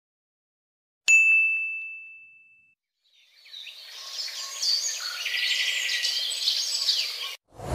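A single bright ding that rings on and fades out over about a second and a half, then birds chirping for about four seconds before the sound cuts off abruptly.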